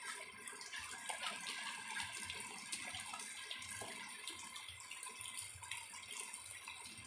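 Heavy rain falling steadily: an even hiss of rain with many small drop ticks.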